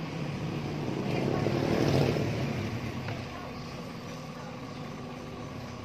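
A motor vehicle passing on the road, its noise swelling to a peak about two seconds in and then fading away.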